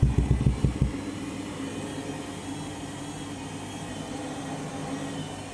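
Candy Grand'O Vita 7 kg washing machine: a quick run of heavy low thumps in the first second as the drum knocks, then the motor and drum running on with a steady hum. The thumping is typical of the load being out of balance.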